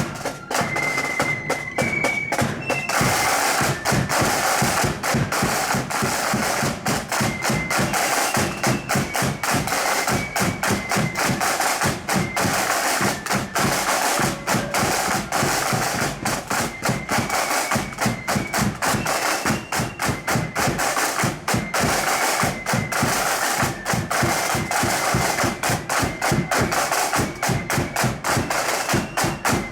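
Marching flute band playing a tune, high flute melody over rapid snare and bass drum beats; the band fills out and gets louder about three seconds in.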